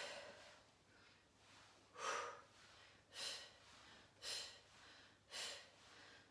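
A woman's short, audible breaths under the effort of holding a plank: one at the start, then four more about a second apart.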